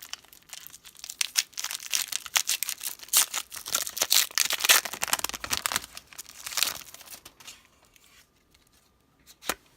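Pokémon TCG booster pack's foil wrapper being torn open and crinkled: a dense crackle for about seven seconds, then quiet apart from a single click near the end.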